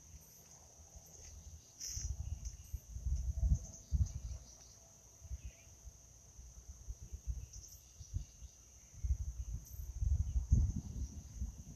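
Insects trilling steadily in one high, even tone, with stretches of low rumble about two to four seconds in and again near the end.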